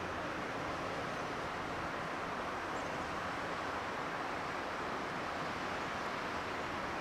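Steady rushing wind noise, even throughout, with a couple of faint high chirps.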